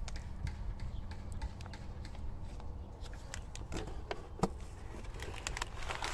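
Scattered light clicks and ticks of brake disc packaging being handled during unboxing, with a sharper knock about four and a half seconds in.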